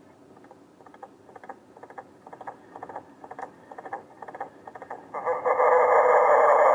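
Halloween sound effects played through the small speaker of a sound module fitted in a Lionel caboose: a run of faint, irregular scratchy clicks, then about five seconds in a loud, harsh, noisy sound.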